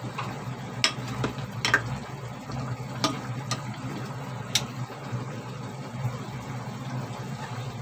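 Pork pieces being stirred in a simmering pot with a spoon that knocks sharply against the pot several times, over a steady low hum.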